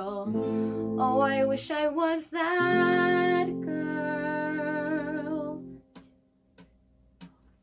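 A woman singing over a strummed ukulele and an electric guitar. The music stops about six seconds in, leaving a near-silent pause broken by a few faint clicks.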